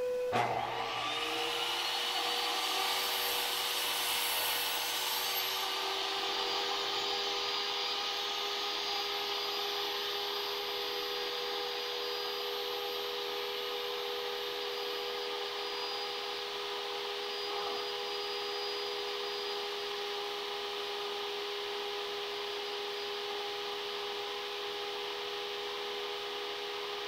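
Table saw running and cutting a long strip of wood. The blade bites in at the start, the cutting is loudest over the first few seconds, and then the saw runs on steadily.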